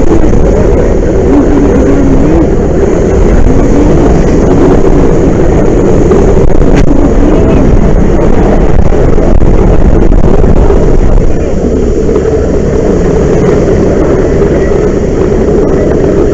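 Steady loud roar of a fire hose nozzle spraying a water stream onto a gas-fed flame at a rail tank car training prop, the fire and the rushing water blended together. The roar drops a little about eleven seconds in.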